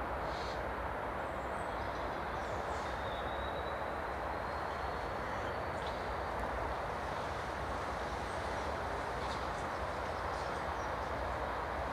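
Distant train approaching along the electrified line: a steady rushing rumble, with a faint high whine that rises slowly a few seconds in.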